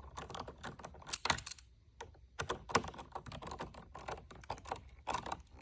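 Light, irregular clicks and taps of a T25 Torx key and the hands working the set screw of an aftermarket shift knob, tightening it down, with a short pause about two seconds in.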